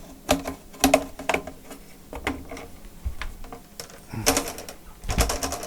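Irregular sharp plastic clicks and snaps of a laptop's display bezel being pried loose from its clips, a few at a time with short pauses between.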